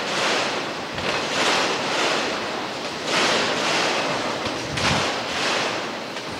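Intermodal freight train rolling past: a steady rushing noise of wheels on rail, rising and falling every second or two as the cars go by.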